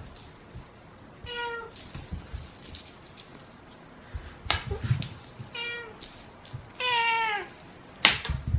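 A cat meowing three times in short, high mews, the third longer and falling in pitch, among sharp clicks and knocks.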